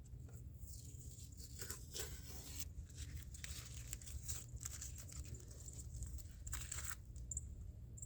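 Irregular rustling and scraping of parts being handled, a string of short noisy scuffs over a steady low hum.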